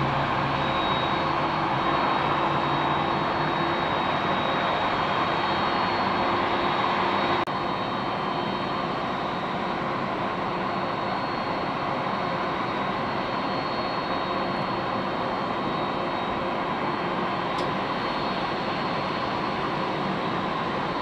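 Boeing 767-300ER's General Electric CF6 jet engines running at low power as the airliner moves off on the taxiway: a steady rush of noise with a thin, high fan whine. The level drops a little about seven seconds in.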